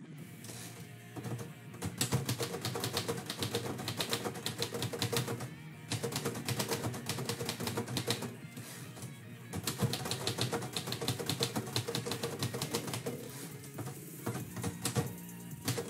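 Manual typewriter being typed on in quick runs of keystrokes, broken by a few short pauses, with background music running under it.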